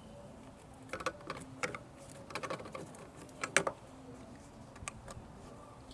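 Irregular light clicks and clatter of hand tools being handled during spark plug removal, with the loudest click about three and a half seconds in.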